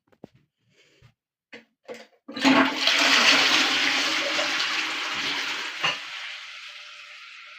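Household flush toilet flushing: a few small clicks, then about two seconds in a sudden loud rush of water that slowly dies away into a steady hiss as the tank refills.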